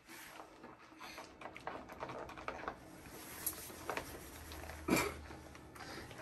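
Scattered light taps and clicks of gingerbread house pieces and their plastic packaging being handled on a table, with one sharper click about five seconds in.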